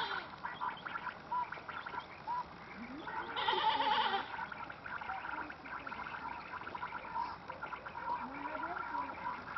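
Faint animal calls: short wavering calls about three seconds in and again near the end, over a faint steady background of higher-pitched calls.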